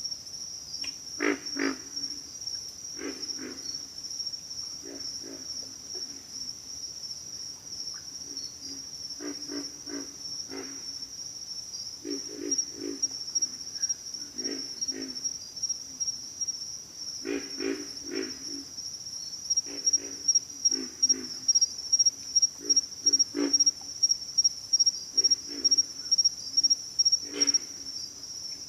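Pig frogs calling: short bursts of low, gruff grunts in quick runs of a few, repeating every second or two. Behind them an insect chorus keeps up a steady high trill, which pulses more strongly in the second half.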